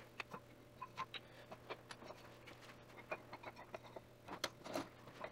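Walnut cutting-board strips being handled and set down on bar clamps: light, irregular wooden clicks and taps, with a quicker cluster of knocks a little before the end, over a faint low hum.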